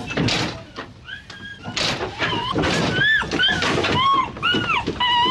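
Steam roller chuffing, with a run of short swooping high notes from about two seconds in.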